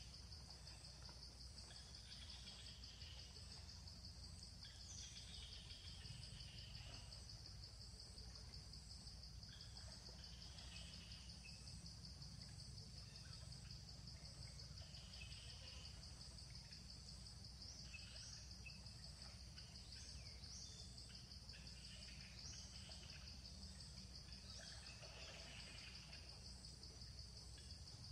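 Faint outdoor ambience: steady, pulsing insect chirring, with a few short bird chirps scattered through it over a low steady hum.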